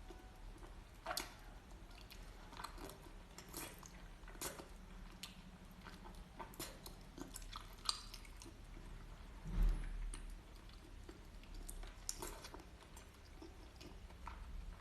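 Close-miked chewing and biting of seafood: a steady run of short wet clicks and crunches from the mouth. A single low thump, the loudest sound, comes about two-thirds of the way through.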